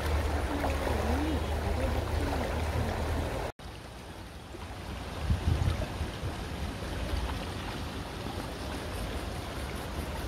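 Shallow stream running over stones, with water splashing as hands dig among the stones in it. A louder thump comes about five seconds in.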